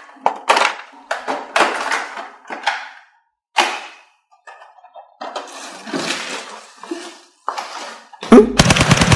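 A series of irregular plastic clatters and rustles as toy foam blasters are handled, then near the end a loud, rapid burst of machine-gun-like shots from a drum-fed toy blaster firing.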